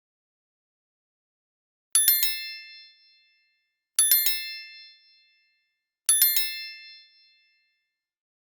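A bright bell-like chime sound effect, a quick cluster of ringing notes that fades over about a second, played three times about two seconds apart.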